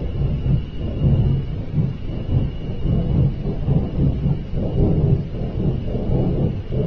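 A loud, continuous low rumble that swells and fades unevenly, one of the unexplained 'strange sky sounds'; a faint steady high tone runs under it through the first half.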